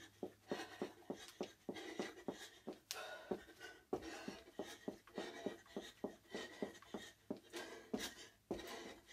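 Sneakers thudding on a carpeted floor in quick repeated jumps, about three landings a second, as in jumping jacks or star jumps.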